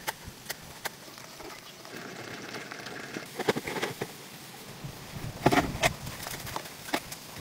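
Live crayfish and a mesh trap clattering against a hard plastic tub as the trap is emptied: scattered sharp clicks, with two short rattling bursts, the louder one about five and a half seconds in.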